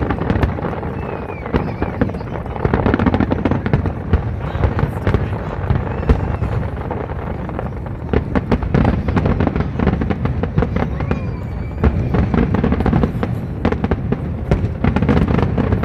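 A fireworks display: many bursts in quick succession, crackling and booming without a break.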